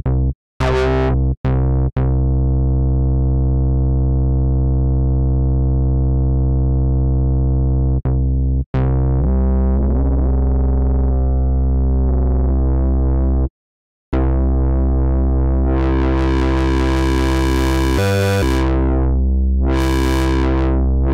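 Ableton's Creative Extensions Bass synthesizer playing low notes: a few short notes, then a long dull held note. About nine seconds in the pitch slides up. After a short break near the middle the tone pulses and turns bright twice as its filter cutoff is opened.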